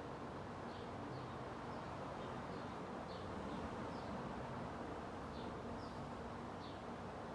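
Vintage GE W16 Slimline electric fan running steadily on high: an even motor hum under the rush of air from its metal blades. Faint short high chirps come and go about once a second.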